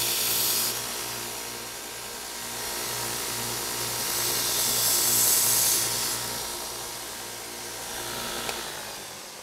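2x72 belt grinder running: the belt hisses against the steel edge of an axe held to the slack part of the belt, louder at the start and again from about four to six seconds in, over the steady hum of the motor. The grinding stops with a small click about eight and a half seconds in.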